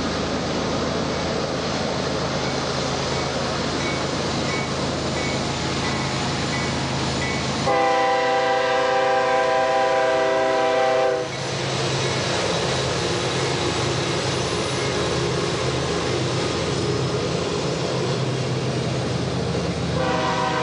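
CSX GE ES44DC diesel locomotive running past with its freight train rolling behind it. Its chord air horn sounds one long blast about eight seconds in, lasting about three seconds, and a second blast starts near the end.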